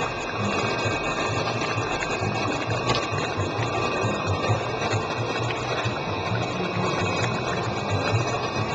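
Machinery running steadily: a motor-driven sound with a fast, even low pulsing over a steady hiss.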